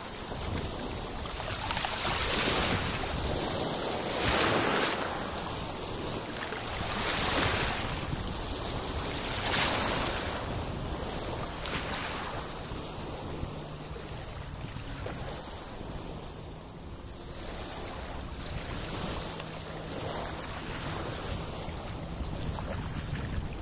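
Small sea waves washing over a stony shore in swells every two to three seconds, easing off after about twelve seconds, with wind buffeting the microphone.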